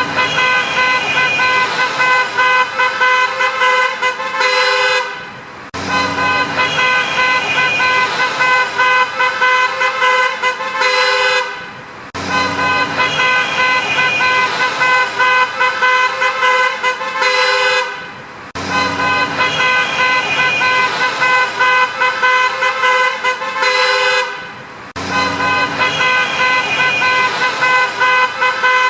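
Street traffic with cars passing and a steady stream of short car-horn honks, several horns sounding over one another. The same six-second stretch repeats about four and a half times, with a brief drop in level at each restart.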